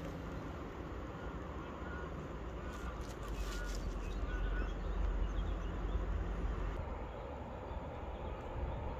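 Outdoor ambience: a steady low rumble that swells in the middle, with a few short bird chirps in the first half.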